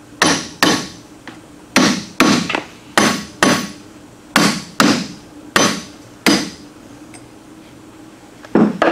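Hand hammer blows tapping a ring gear down onto a Mopar 8 3/4-inch differential carrier, seating it so the bolts can be started. There are about ten sharp strikes, mostly in pairs, each with a short ring of metal, then a pause.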